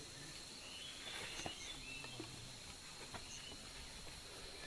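Faint outdoor ambience: a steady high insect drone, with short chirps and a few faint clicks.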